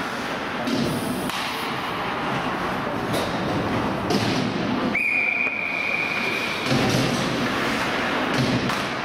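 Ice hockey play in a rink: knocks and thuds of pucks, sticks and bodies against the boards, and about five seconds in a referee's whistle blown once, a steady high tone held for under two seconds.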